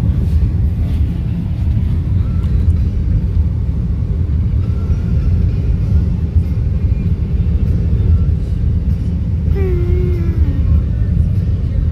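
Steady low rumble of a car's road and engine noise, heard from inside the cabin while driving. A short wavering tone, dipping at its end, sounds briefly about ten seconds in.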